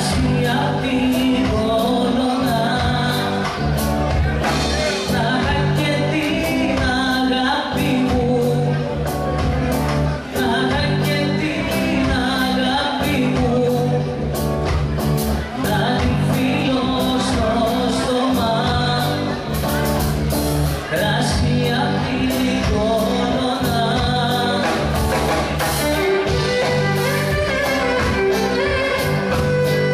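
Live band music with a singer, over a steady drum beat and guitar.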